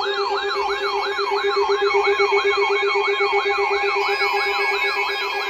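Electronic yelp-style siren wailing rapidly up and down, about three sweeps a second, over a steady pulsing lower tone.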